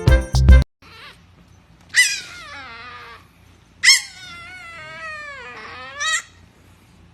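A dog making drawn-out whining vocalisations that waver up and down in pitch, like talking. There are three: a falling one about two seconds in, a longer one that dips and climbs again, and a short one near the end. Music cuts off just after the start.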